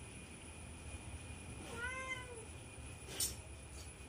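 A domestic cat meowing once, a single call that rises and falls, about two seconds in. A short sharp click follows a little after three seconds.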